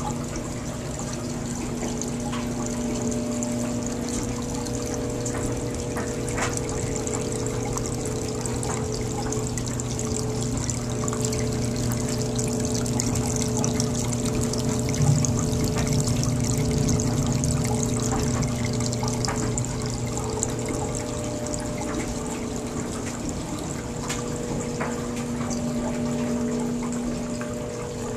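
Water running and trickling steadily over a constant low hum, with a brief knock about halfway through.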